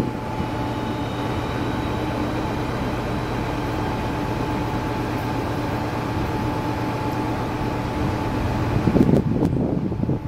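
Steady mechanical hum of train fans and electrical equipment, holding several fixed tones at an even level. About nine seconds in, an uneven gusty rumble joins it.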